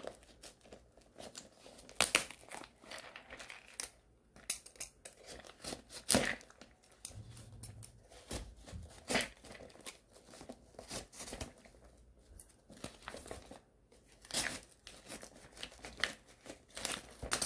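Parcel packaging being torn open and crinkled, in irregular short crackles and rips.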